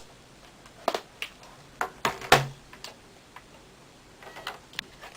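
Laptop battery pack being slid into its bay and latched: a handful of sharp plastic clicks and knocks, the loudest a click with a dull thud about halfway through, then a few faint ticks.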